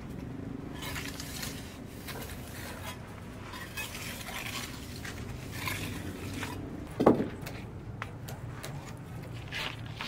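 Intermittent scraping and light clatter, with one sharper, louder knock about seven seconds in.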